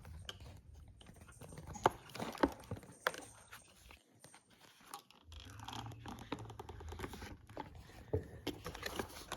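Scattered plastic clicks and scraping from hands working a stuck wiring connector off the back of a motorcycle headlight, with a short pause in the middle.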